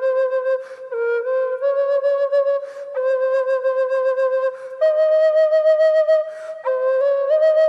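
Background music: a single melody line played in long, held notes, with short pauses between phrases.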